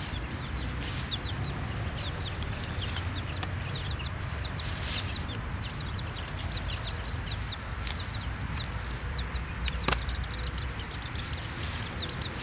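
Baby chicks peeping: a steady stream of short, high, downward-sliding chirps from several birds, over a low background rumble. A single sharp click comes about ten seconds in.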